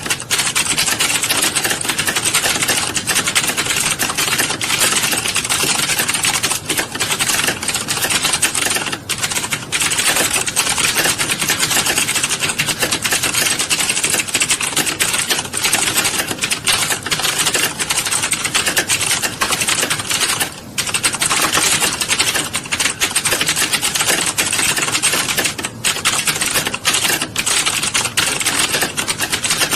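Fast, continuous typing: a dense stream of key clicks with a short pause about twenty seconds in.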